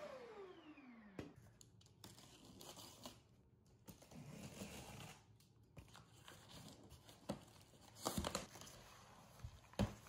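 A Shark IQ robot vacuum's self-empty base winding down, its motor whine falling in pitch over about a second as it stops. Then cardboard and plastic wrap rustle and crinkle as a boxed aluminium telescoping ladder is handled and opened, with a few knocks, the loudest near the end.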